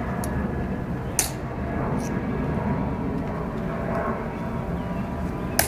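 A few sharp clicks from the Tomb Guard sentinels' metal-tapped heels on the stone plaza, loudest about a second in and near the end, over a steady low outdoor rumble.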